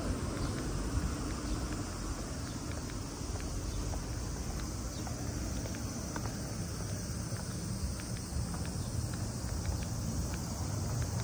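Footsteps of someone walking, heard as light scattered clicks over a steady high insect drone and a low background rumble.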